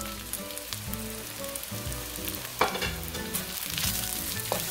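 Onions, carrots, green pepper and freshly added tofu cubes sizzling in hot oil in a nonstick wok while a wooden spatula stirs them. A sharp knock comes about two and a half seconds in, and a lighter one near the end.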